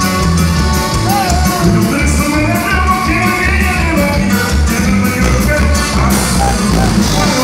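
Live norteño band music: button accordion melody over electric bass and a steady drum beat, with a voice singing.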